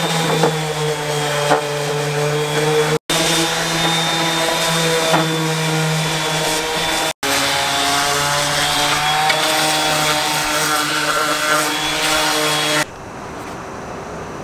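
Electric sander running steadily, its pad rubbing across the ridged surface of a 3D-printed recycled carbon-fibre ABS longboard deck to smooth the printing lines. The sound cuts off twice for a split second and stops about a second and a half before the end, leaving a much quieter background.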